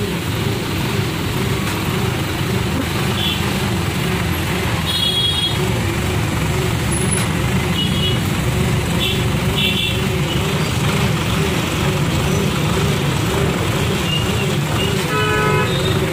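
Hydra crane's diesel engine running steadily at close range. Several short horn toots come over it, a few around the middle and one with many overtones near the end.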